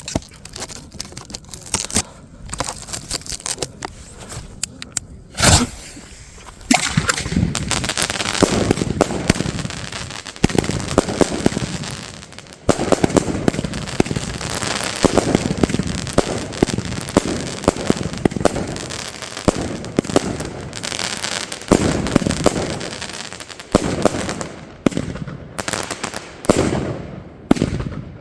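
Consumer F2 firework batteries firing: a few scattered shots at first, then about seven seconds in a dense, nearly continuous run of launches and bursts, thinning to separate shots near the end.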